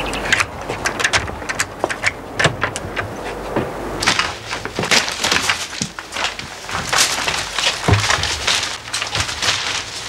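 Radio-play sound effects of a door being unlocked with a key and opened: a string of separate clicks, rattles and knocks, with a heavier knock about eight seconds in.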